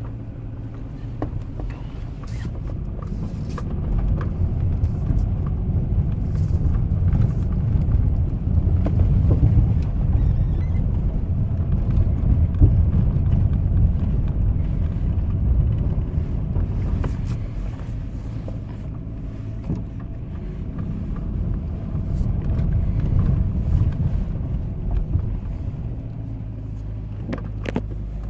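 Car driving: a steady low engine and road rumble that swells after a few seconds and eases again later.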